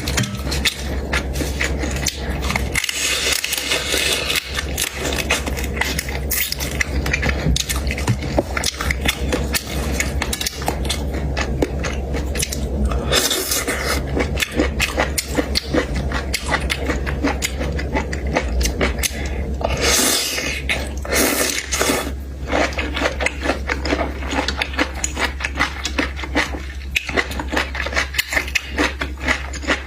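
Close-up eating of seafood: a dense, irregular run of crunching, chewing and scraping, over a steady low hum.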